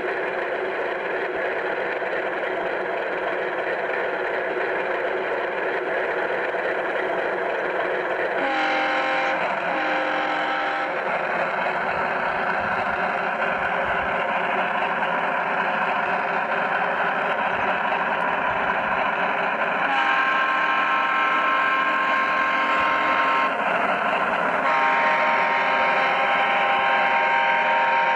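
G-scale model BR 218 diesel locomotive running along garden-railway track, giving a continuous mechanical hum. Steady pitched tones sound briefly twice about nine seconds in, and again for several seconds at a time in the last third.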